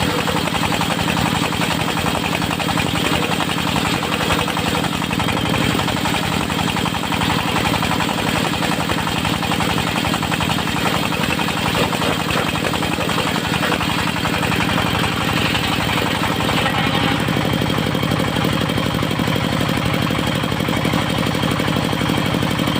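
Diesel engine of a locally built mobile circular sawmill running steadily, with a fast, even knocking beat.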